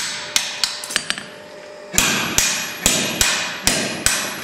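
Hand hammer striking a round punch held in tongs, driving it through red-hot iron on an anvil to open the eye (handle hole) of a forged tool. Each blow rings metallically. There are a few lighter, quicker strikes in the first second, then heavier blows about two a second from about two seconds in.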